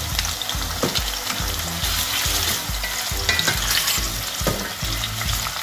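Sliced onion sizzling in hot olive oil in a stainless steel pot, stirred with a wooden spatula that scrapes the pot now and then. The onion is being sweated soft in the oil.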